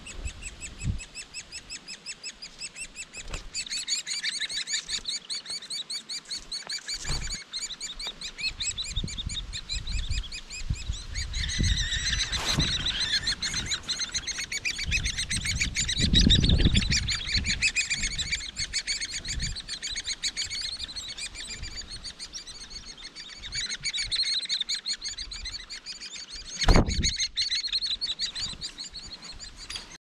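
Hairy woodpecker nestlings begging inside the nest cavity: a continuous fast, high chattering that swells loudest in the middle. A few sharp snaps break in, the loudest near the end.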